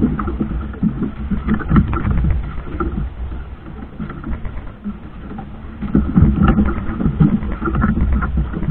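Boat at sea: a steady low rumble with many irregular knocks and splashes, easing a little in the middle.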